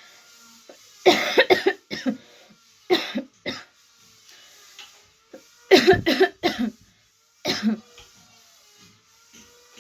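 A woman coughing in two bouts of several harsh coughs each, the first starting about a second in and the second a little past halfway.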